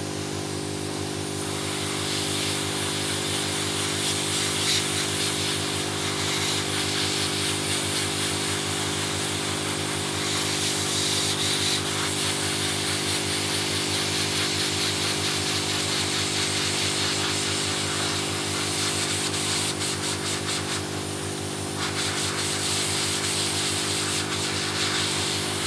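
Heat gun running steadily with a small nozzle fitted: a constant fan-motor hum under a rush of blown air that grows louder about two seconds in.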